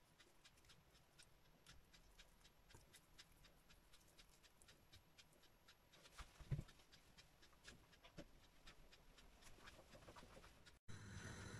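Faint, quiet wet clicks of fingers squeezing raw sausage meat out of its casings, with one louder bump about six and a half seconds in. Near the end a steady low hum comes in.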